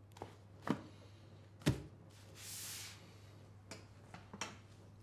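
A thick hardcover book is handled and shut with a low thump a little under two seconds in, then slid aside across a desk with a soft swish. A few light clicks and taps come before and after.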